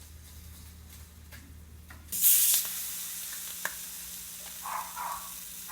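Food hitting hot oil in a pan: a loud burst of sizzling about two seconds in, settling into steady frying sizzle.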